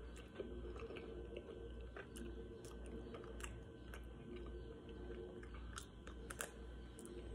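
Faint close-up eating sounds from a vanilla Magnum ice cream bar being bitten and chewed: soft wet chewing and lip smacks, with scattered small clicks and a bite near the end.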